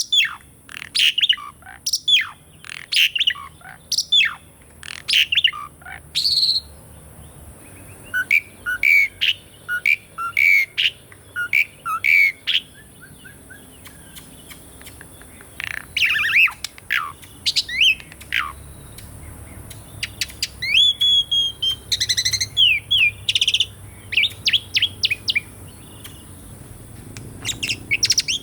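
Asian pied starling (jalak suren) singing: bouts of quick, sharp, sweeping chirps and whistles, with short pauses between the bouts.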